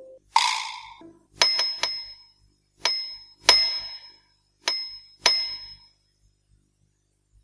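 A short swish, then a small high-pitched metallic bell struck six times in uneven pairs, each strike ringing briefly before dying away.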